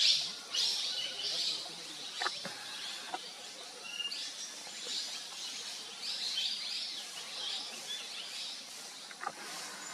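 Wild birds chirping and calling in a forest, many short high chirps repeating over a steady background hiss, with a couple of brief faint sweeps about two seconds in and near the end.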